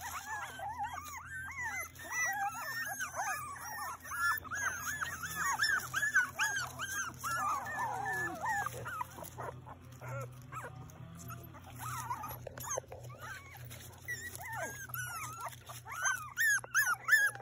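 A litter of young puppies whining and squeaking, many short high cries that rise and fall and overlap one another; they thin out about ten seconds in and crowd together again near the end.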